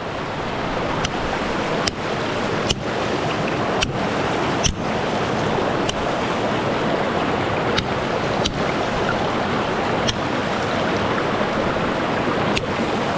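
Light, irregularly spaced taps of a hammer and chisel on rock, about ten of them, over a steady rush of river water.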